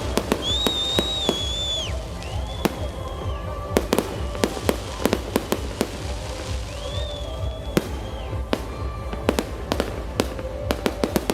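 Fireworks display: many sharp bangs and cracks going off irregularly, with several high whistles that rise, hold and fall away over about a second each. Music plays underneath.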